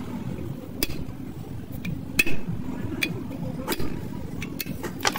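Irregular metallic clinks and knocks, about a dozen, the loudest a little past two seconds in, over a steady low hum.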